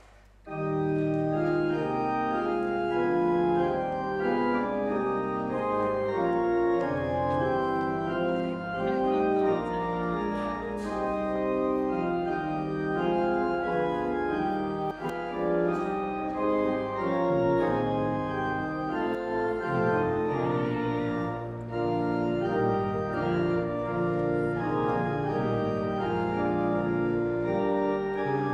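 Church organ playing the postlude after the dismissal, with full, sustained chords. It comes in about half a second in.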